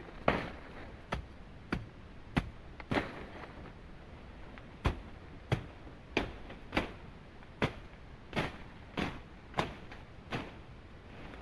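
A steady series of sharp blows of a tool striking wood, about one every half second to two-thirds of a second, over a steady background hiss.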